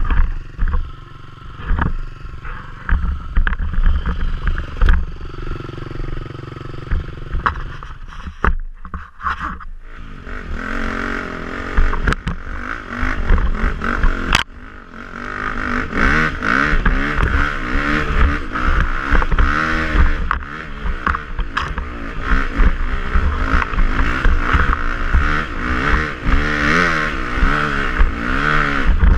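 Enduro motorcycle engine being ridden hard, its revs rising and falling again and again as the rider works the throttle, over a heavy low rumble and frequent knocks from the bike bouncing over rough ground. The engine eases off briefly about a third of the way in, then revs up and down continuously.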